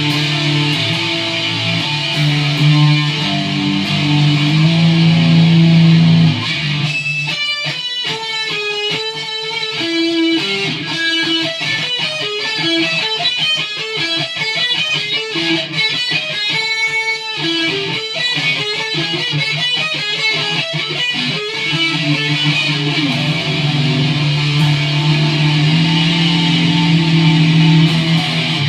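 KH-1 custom electric guitar being played: held chords for about the first six seconds, then a run of quick single notes, then held chords again from about two-thirds of the way through.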